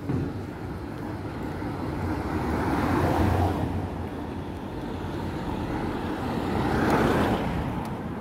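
Road traffic: two vehicles pass one after the other, each a rush of noise that swells and fades, one about three seconds in and the other about seven seconds in.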